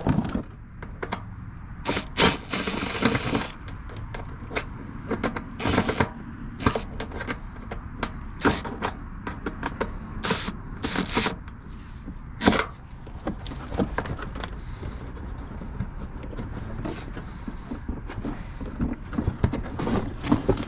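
Plastic inner fender liner of a Chevy Silverado being pulled free by hand: irregular sharp clicks and knocks of push-pin clips popping and plastic flexing. There is a longer scraping rustle about two seconds in, and the loudest snaps come near the start and about twelve seconds in.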